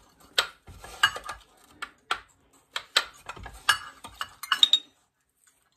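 Metal measuring cup clinking and tapping against a mixing bowl as sugar is scooped and emptied into it: a run of irregular sharp clinks, a few to each second, that stops near the end.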